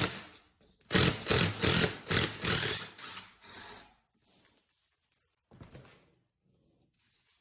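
A run of about eight short, harsh mechanical bursts, two to three a second, from tool work on the disassembly of an automotive air suspension compressor, stopping about four seconds in.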